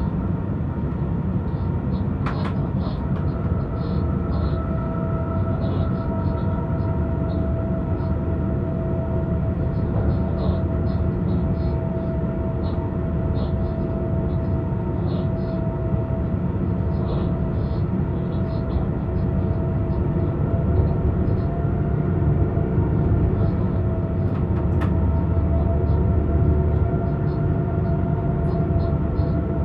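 Cab of a BR 186 (Bombardier TRAXX) electric locomotive running at speed: a steady rumble of wheels on the rails with a constant whine from the drive, and light ticking throughout.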